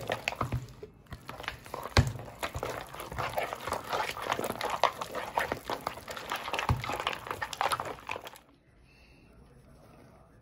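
Pork lard being beaten by hand with ice cubes in a plastic bowl: rapid wet squelching, slapping and scraping strokes, with a couple of heavier slaps, that stop abruptly a little past eight seconds in. The lard is kept cold with ice so that it whips up fluffy.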